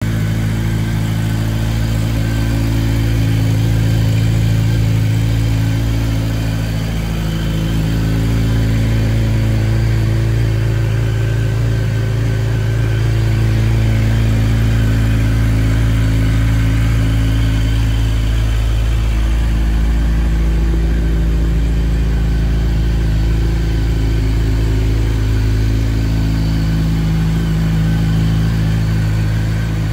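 Honda CBR1100XX Super Blackbird's inline-four engine idling steadily through its stock silencer.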